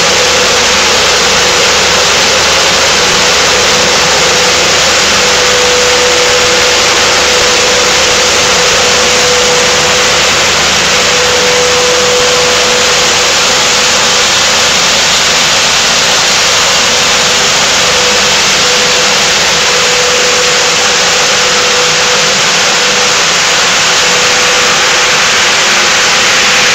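A hard-PVC pelletizing line running: a loud, even rushing noise with a steady mid-pitched tone over it, unchanging throughout.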